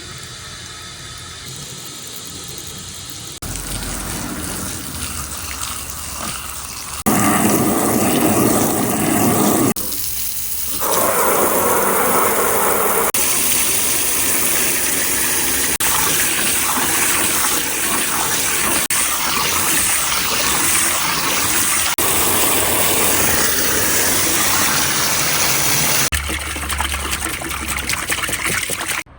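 Water gushing and running through the channels of a water-driven marble run, with sudden jumps in loudness: louder about seven seconds in, a brief dip near ten seconds, then a steady heavy flow until near the end.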